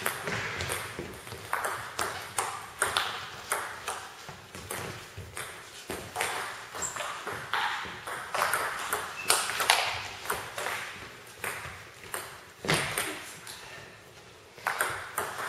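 Table tennis rally: the celluloid-type ball is struck back and forth, with quick sharp pings as it hits the bats and bounces on the table, several a second. One of the bats carries Nittaku Monophonic pimples-out rubber. The hits thin out briefly near the end, then resume.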